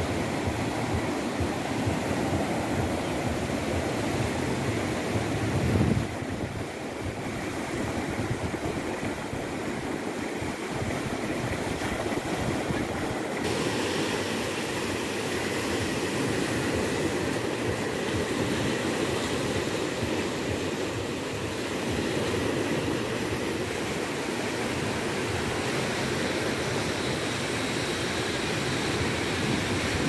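Black Sea surf: waves breaking and washing up a sandy beach in a steady rush, with abrupt shifts in the sound about 6 and 13 seconds in.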